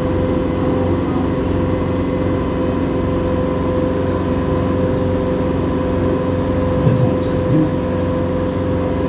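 Water taxi boat's engine running steadily: a constant drone with a steady hum.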